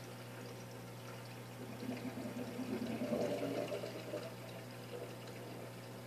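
Saltwater reef aquarium's water circulation: running water over a steady low equipment hum, swelling louder for about two seconds in the middle.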